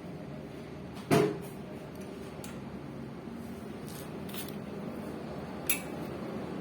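Knocks and clicks of tools and bicycle parts being handled during a repair: one loud clank with a brief ring about a second in, a few light clicks, then a sharp click near the end.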